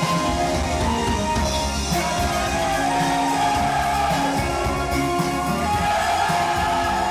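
Dance music with singing, playing steadily and loud.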